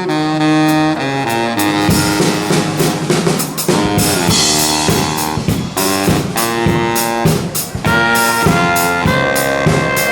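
Brass band playing live: horns hold chords at first, then a steady beat kicks in about two seconds in and the band plays on at full volume.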